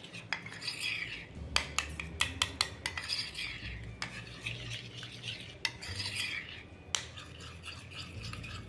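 Metal spoon stirring and beating thick ganache of melted chocolate and cream in a glass bowl, with irregular clinks and taps of the spoon against the glass and short scraping strokes along its sides. This beating is the stage where the chocolate and cream are worked until the ganache thickens and sets properly.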